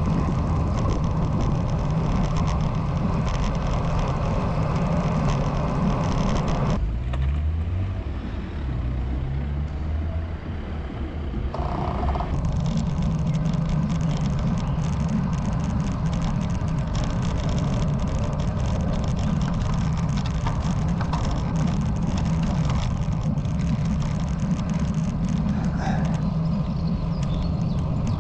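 Wind rushing over the microphone of a bicycle-mounted camera, with tyre and road noise, while riding a road bike. From about seven to twelve seconds in it drops and a low hum rises in pitch in steps.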